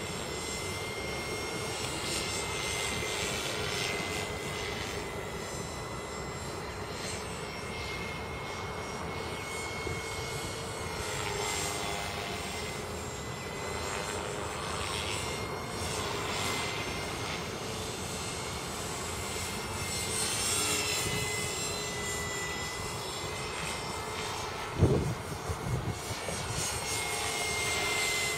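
KDS 450 flybarless radio-controlled helicopter flying, with a steady high whine from its electric motor and drive and the rotor blades whooshing in several swells as it manoeuvres. A sudden thump a few seconds before the end.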